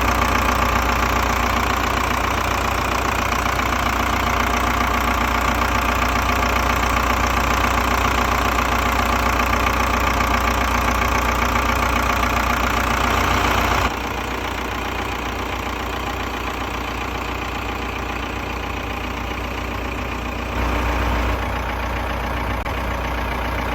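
Komatsu S4D102E four-cylinder diesel engine of a PC130-6E excavator idling steadily. The sound drops suddenly quieter about two-thirds of the way through.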